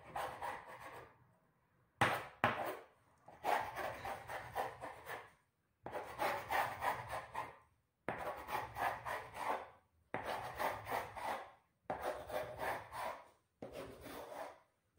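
Kitchen knife drawn through rolled-out chapati dough and scraping along the countertop, in about six long strokes with short pauses between them as the dough is cut into strips. Two sharp knocks about two seconds in.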